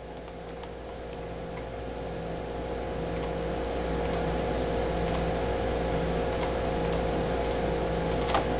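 Steady electrical hum and background noise with faint ticks about once a second, slowly growing louder.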